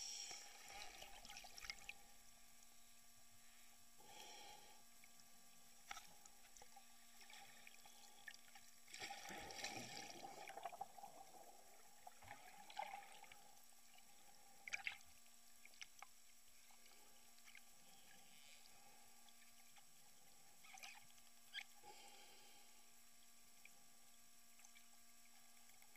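Faint, muffled underwater bubbling and splashing heard through an underwater camera, loudest as a burst of bubbles about nine to eleven seconds in. A few scattered clicks and a faint steady electronic hum run underneath.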